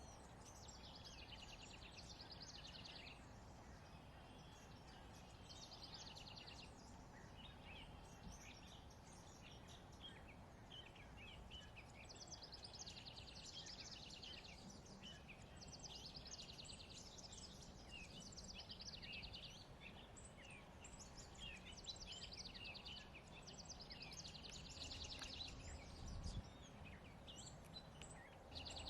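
Faint songbirds singing outdoors: rapid trilled phrases of a second or two, repeating every few seconds, over a steady low background rumble.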